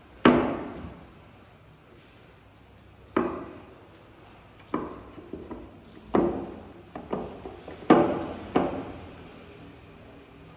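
Dry blossom branches cracking and knocking as a small monkey grabs and tugs at them in their vase: seven or so sharp cracks at irregular intervals, the loudest about a third of a second in and about eight seconds in.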